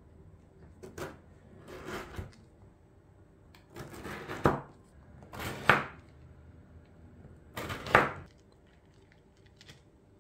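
Chef's knife sawing slices off a cooled, once-baked biscotti loaf on a plastic cutting board: about five rasping cuts, each ending in a sharp knock as the blade meets the board, the last three the loudest.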